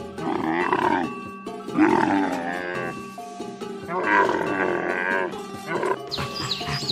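Three drawn-out animal calls, each about a second long and wavering in pitch, over background music.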